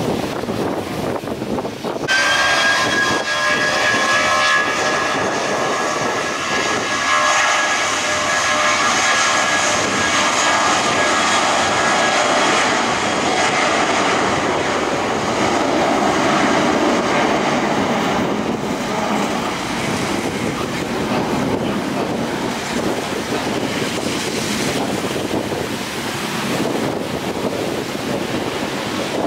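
Jet airliner's turbofan engines passing: a broad jet roar with a thin, high fan whine that starts abruptly about two seconds in and slowly sinks in pitch and fades, the roar deepening as the aircraft moves away.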